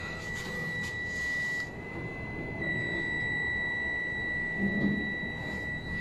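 Lift car's electronic buzzer giving one steady high-pitched tone without a break, with the doors standing open. A brief low bump comes about five seconds in and is the loudest moment.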